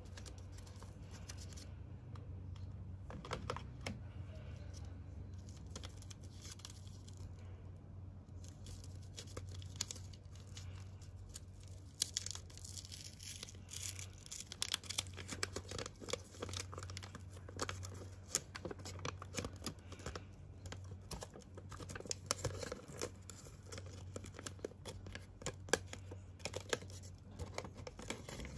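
Gold foil and white paper wrappers of a chocolate bar crinkling and tearing as hands peel and unfold them. There are scattered crackles at first, then a dense run of crinkles from about nine seconds in.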